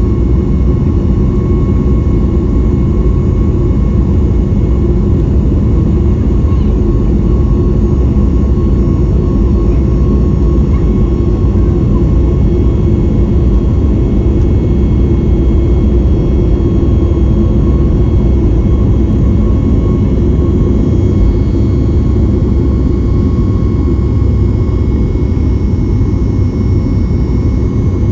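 Cabin noise of a Boeing 737 MAX 8 airliner in flight, heard from a passenger seat. The CFM LEAP-1B engines and the airflow make a steady, loud rumble, with a faint steady whine on top.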